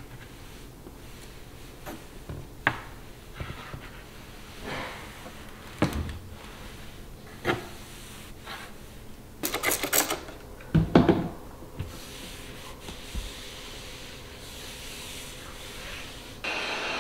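Fluffy duster and a wipe brushing and rubbing over a wooden TV cabinet and TV, with scattered light knocks and taps and a quick cluster of clicks about ten seconds in. Near the end a steady machine hum starts suddenly.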